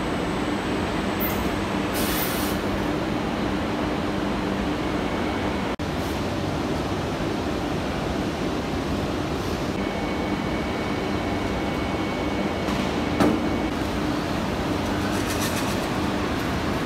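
Steady mechanical running noise of an automatic coil packing line, with a low hum underneath. Brief hisses come about two seconds in and again near the end, and a single sharp clack sounds about two-thirds of the way through.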